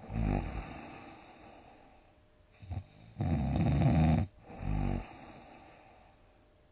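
A sleeping person snoring loudly: a short snore at the start, a brief snort a little before the middle, then a long rough snore of about a second followed at once by a shorter one.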